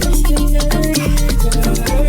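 Dance music from a live DJ mix: busy, rapid percussion over a steady deep bass, with sustained melodic tones.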